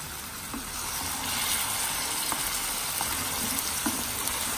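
Chopped onions, ginger and roughly blended pepper sizzling in hot vegetable oil in a frying pan, with a few light knocks of a wooden spoon stirring them. The sizzle grows louder about a second in as the pepper is worked into the oil.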